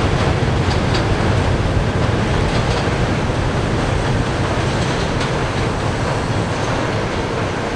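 Subway train running along the elevated track as it pulls away, a steady rumble with a few faint wheel clicks over the rail joints, slowly easing off.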